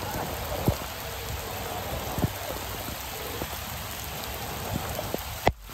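Steady heavy rainfall, with a few sharp taps of drops striking close by. The sound cuts out briefly just before the end.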